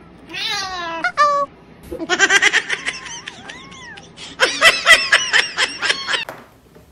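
A person laughing in two bouts of rapid, high-pitched pulses, the second about a second after the first ends, with a high falling cry near the start.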